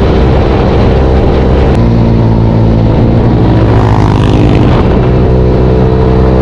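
Engine of a Venom x18-series automatic super pocket bike running under way. Its pitch drops about two seconds in as the throttle eases, then rises again as it accelerates and holds steady.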